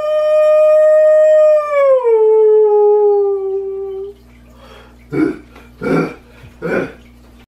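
A man howling like a wolf: one long howl held on one pitch, dropping lower about two seconds in, then fading out. Three short, harsh growling cries follow, close together, near the end.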